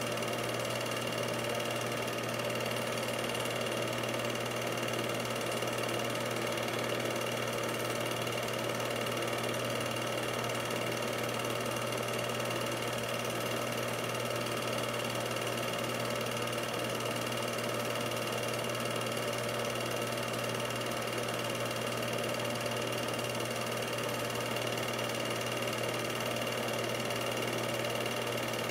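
Steady mechanical whir of an 8mm film projector running, an unchanging hum with a few fixed tones.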